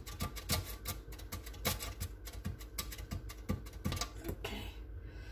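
Potato being slid quickly up and down a metal box grater to cut thin slices: a run of quick rasping strokes, about three a second, that stops about four and a half seconds in.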